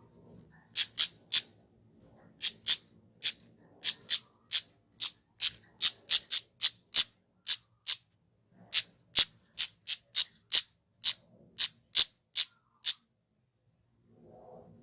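Kemade flowerpecker giving a long series of short, sharp, high-pitched call notes, about two to three a second, some in quick runs. The calls stop a couple of seconds before the end.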